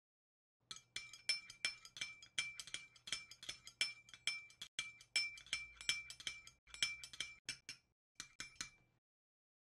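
Metal palette knife stirring acrylic gesso in a glass bowl, clinking against the glass about four times a second with a short ringing note on each strike; water is being worked in to thin the stiff mixture. The stirring pauses briefly near the end, then a few more clinks.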